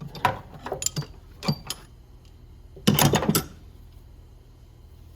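Metal hand tools clinking and clattering as they are handled: a run of sharp clinks in the first two seconds, then a short burst of clatter about three seconds in.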